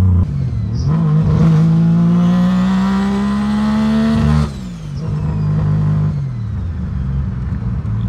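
Turbocharged three-rotor rotary engine of a Mazda RX-7 pulling hard under boost, heard from inside the cabin, its pitch climbing for about three seconds. About four seconds in the driver lifts off at around 4,500 rpm; the note drops sharply and the revs fall away to a lower steady drone.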